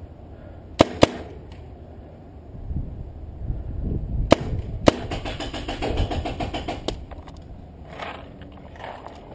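Paintball markers firing: two sharp cracks close together about a second in, two more around four and a half seconds, then a fast, evenly spaced run of quieter pops for about two seconds. Low rumbling runs underneath.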